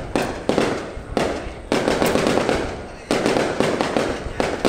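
Aerial firework shells bursting overhead: a series of sharp bangs at uneven intervals of roughly half a second to a second and a half, each trailing off in a long rolling echo.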